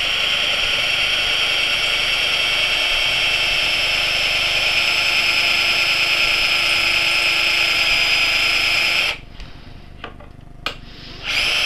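Black+Decker 20-volt cordless drill running on high speed with a 1/4-inch cobalt bit, boring through the solid steel inner tube of a scooter stem: a steady, high motor whine. It stops about nine seconds in, a click follows, and the drill starts up again near the end.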